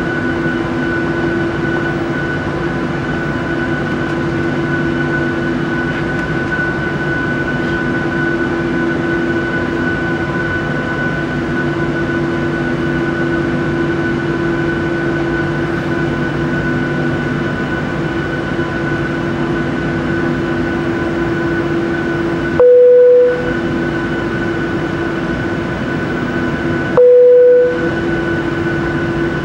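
Airliner's jet engines running at taxi power, heard inside the cabin as a steady hum with several held tones. Two short loud beeps cut in near the end, about four seconds apart, with the cabin hum dropping out under each.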